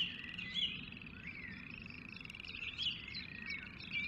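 Rainforest wildlife chorus: a steady, fast-pulsing high trill of calling animals, with short whistled chirps and swooping calls repeating over it.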